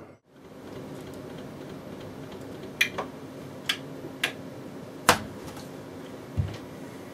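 Merkur Rondo gaming machine clicking and clacking as its buttons are pressed during play: about five sharp clicks in the middle, the loudest about five seconds in, and a short low thud near the end, all over a steady hum.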